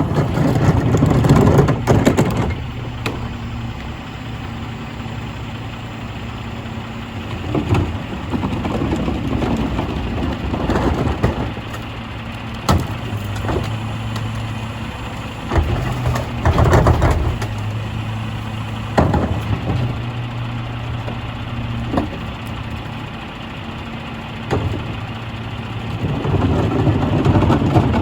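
Mack LR McNeilus rear-loader garbage truck running at idle with a steady low hum; its sound gets louder four times. Several sharp bangs are scattered through it.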